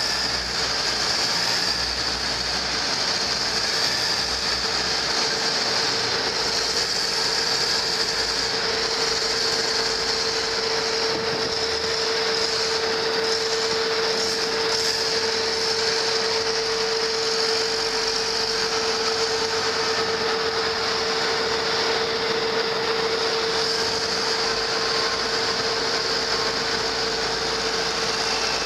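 Heavy machinery running steadily, with a constant mid-pitched hum over a hiss: a wheel loader pushing cement to the screw unloader's intake, and the unloader itself working, in a bulk carrier's steel cargo hold.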